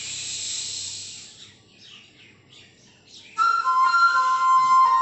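A long hushing "shh" that fades about a second and a half in, then a quiet gap, then the backing music comes in loudly about three and a half seconds in with a flute-like melody.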